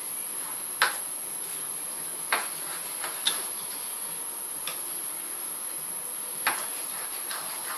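A spatula stirring a creamy curry sauce in a frying pan, knocking sharply against the pan four times, over a steady hiss.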